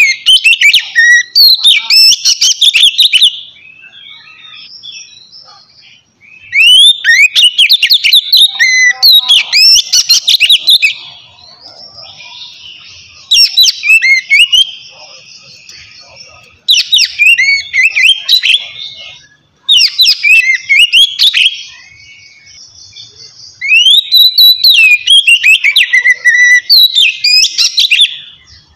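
Oriental magpie-robin (kacer) singing a loud, open song in about five bursts of a few seconds each. Each burst is made of rapid rising and falling whistled notes, with softer song between the bursts.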